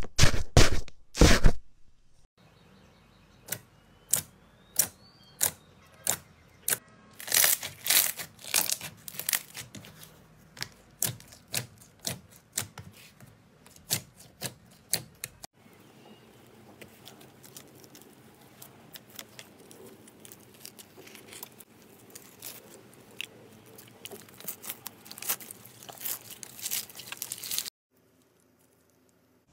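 Hands pressing and squishing slime. It opens with loud crackling as a cup is pushed into foamy slime, then a string of separate sharp pops and clicks as fingers press a sheet of clear glitter slime. A fainter, continuous fine crackling follows and cuts off a couple of seconds before the end.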